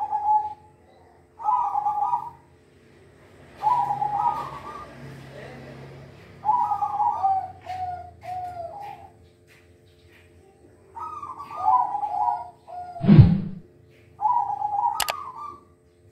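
Zebra dove (perkutut) cooing: six short bouts of song separated by pauses, each a quick run of mid-pitched rolling notes. A sharp thump about thirteen seconds in is the loudest sound, and there is a brief click a couple of seconds later.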